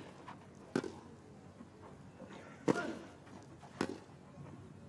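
Tennis racquets striking the ball in a rally: three sharp hits, about a second in, near three seconds in, and again about a second later.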